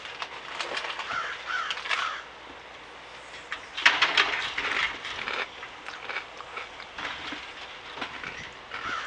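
Crows cawing: harsh calls in short runs about a second in and again near the end, with a louder, harsher burst of noise about four seconds in.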